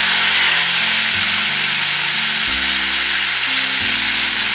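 Olive oil sizzling steadily in a frying pan as sliced garlic and strips of piquillo pepper fry, with background music of low sustained notes.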